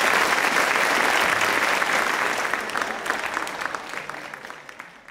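Audience applause, many hands clapping together, fading away over the last couple of seconds.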